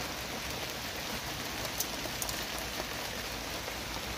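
Small wood fire on the ground crackling, a steady hiss with a few sharp pops around the middle.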